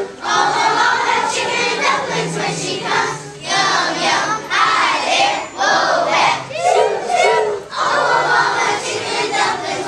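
A group of young children singing together loudly, in phrases with short breaks between them.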